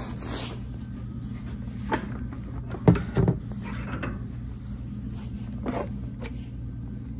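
Steady low hum under a few soft knocks and rubs from handling, the loudest pair about three seconds in.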